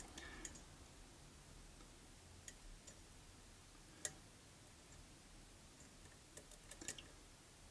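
Faint, scattered clicks of a lock pick working the pins at the back of a pin-tumbler lock under tension, one sharper click about four seconds in and a few small ones near the end.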